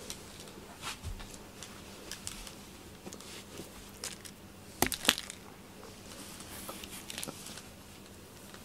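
Scattered light taps and rustles of a toy mouse being handled and batted at by a cat, loudest as a quick cluster of sharp taps about five seconds in.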